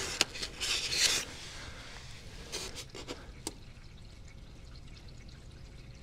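Soft handling rustle, then a few light clicks as the power cord and control-panel buttons of a SetPower 12 V compressor fridge are worked to switch it on, over a faint steady background.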